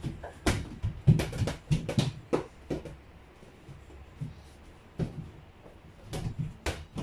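Small toy ball knocking against a door-mounted toy basketball backboard and hoop and bouncing in a small room: a quick run of thuds in the first three seconds, then a few more knocks near the end.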